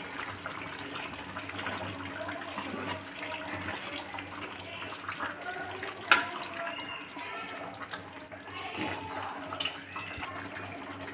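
Chicken curry bubbling as it simmers in an aluminium kadai on a gas burner, stirred with a metal ladle; about six seconds in, the ladle strikes the side of the pan with one sharp clink, the loudest sound here.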